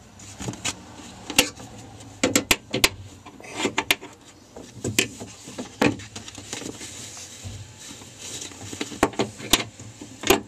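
Irregular knocks, clicks and scraping, some in quick clusters, as a new door check is worked through the hole in a 2003 Jeep Liberty's door frame, one end first and then the other end manipulated in.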